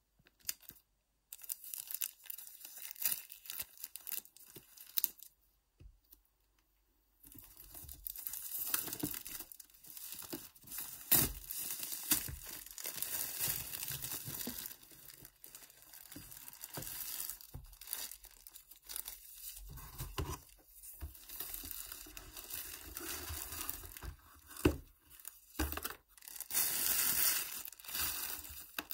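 Plastic shrink-wrap being torn off the iPad Pro box and crumpled in the hands, a dense crinkling and tearing. It comes in short bursts at first, stops briefly about six seconds in, then runs almost without a break and is loudest near the end.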